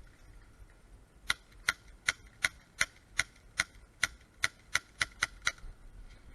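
Airsoft gun firing about thirteen single shots in quick succession, roughly three a second, each a sharp crack.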